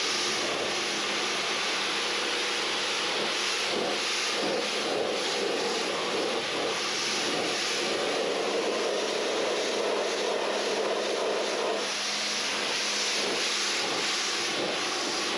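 Pressure washer running: a steady motor hum under the hiss of its water jet spraying the car. The spray sounds fuller from about four seconds in until about twelve seconds.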